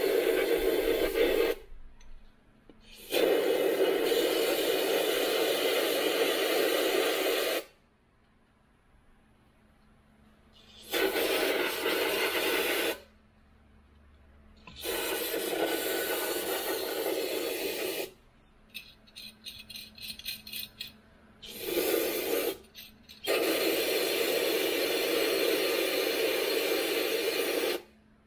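Aerosol brake cleaner sprayed onto a very dry clutch bearing from a 1951 John Deere Model A, in about six bursts of hiss lasting one to four seconds each, with pauses between them. The spraying cleans out the bearing before it is greased.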